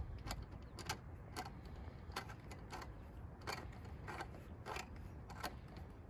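Klein 11-in-1 hand screwdriver turning a small screw into the top of a weatherproof electrical box: a run of about nine light clicks, a little under two a second, as it is turned and regripped.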